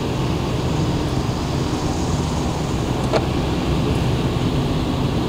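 Steady engine and tyre noise heard inside a Lada Granta's cabin while driving on a wet road, with one short click about three seconds in.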